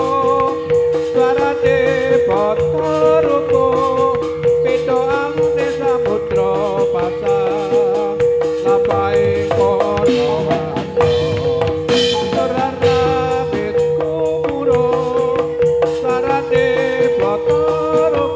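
Javanese gedruk dance accompaniment: drums and a dense shaking rattle of percussion under a wavering melody line, over one steady held tone.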